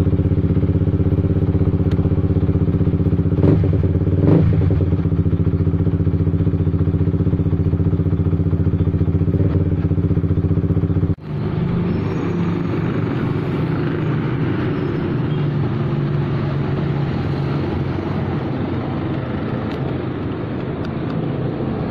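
Honda RS150's single-cylinder engine idling steadily, with two brief knocks about three and four seconds in. About eleven seconds in the sound cuts abruptly to another recording of the engine idling, hazier and with a less distinct pitch.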